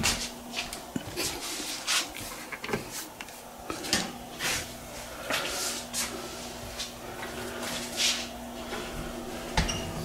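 Footsteps on a tile floor with knocks and rustles from a hand-held camera being carried, and a door being handled at the start. A faint steady low hum runs underneath.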